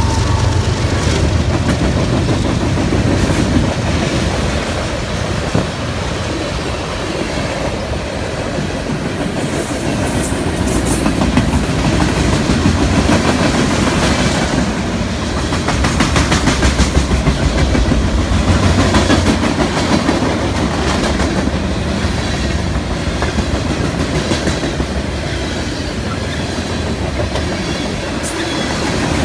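Freight train cars rolling past at close range: a steady rumble with the rhythmic clickety-clack of wheels over rail joints.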